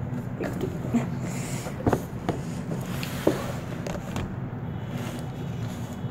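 Cardboard shipping box being handled, its flaps opened: a handful of short scrapes and knocks over a steady low hum.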